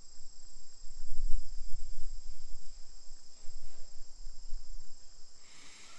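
Steady high-pitched chorus of insects in the surrounding trees, with an uneven low rumble on the microphone that is loudest about a second in.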